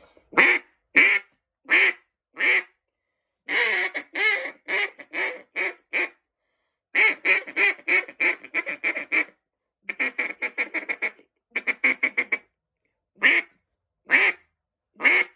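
Green polycarbonate single-reed Echo duck call blown in a string of quacks. A few spaced single quacks open it, then a longer sequence, then rapid runs of short notes at about six a second, and a few spaced quacks again near the end.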